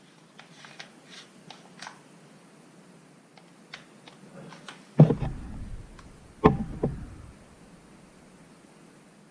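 Light clicks and rattles, then two loud, deep thumps about a second and a half apart, each followed by a smaller knock.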